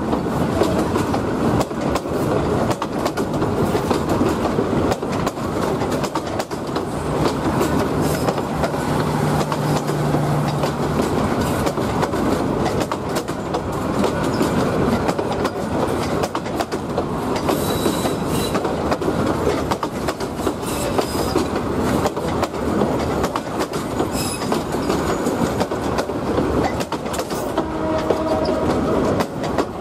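Passenger train coaches rolling past close by, wheels clattering over rail joints and points under a steady rumble, with a few brief wheel squeals.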